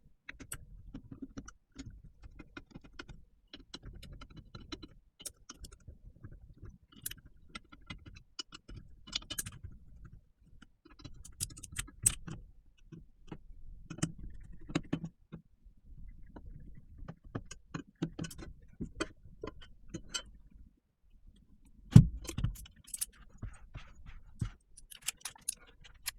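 Aluminium keyboard case and plate being handled and taken apart: scattered light metallic clicks and clinks over a low handling rumble. One louder knock comes late on.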